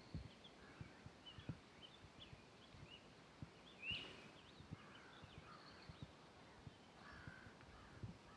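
Faint footsteps on a forest trail, about one and a half steps a second, with small birds chirping. A sharper bird call comes about four seconds in.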